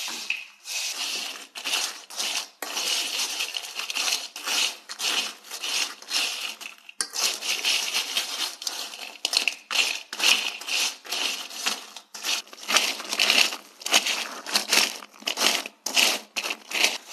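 White plastic spatula stirring and scraping French fries around a small wok: a run of rustling, crunchy scrapes, about one or two a second.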